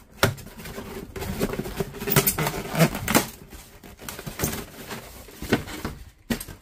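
Packaging being handled while an RV air conditioner's interior control panel is pulled out of its shipping box: irregular clicks, knocks and rustles, the loudest about two to three seconds in.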